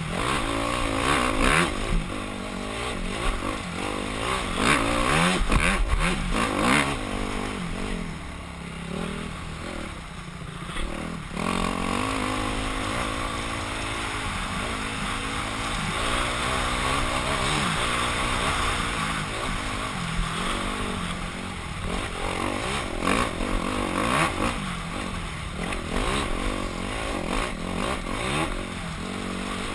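Yamaha YZ250F four-stroke single-cylinder dirt bike engine revving up and down under hard riding over a rough dirt track, heard through a helmet-mounted camera with wind noise and occasional knocks. The engine eases off about eight seconds in, then picks back up and holds a steadier pull.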